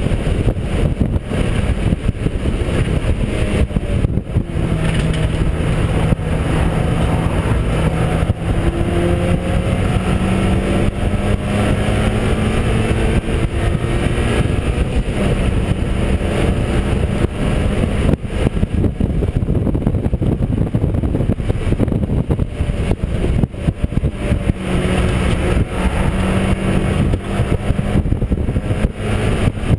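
Mazda MX-5 race car's four-cylinder engine heard onboard at racing speed, its pitch climbing through the gears several times, with short drops at the shifts and lifts, over a constant rush of wind and road noise.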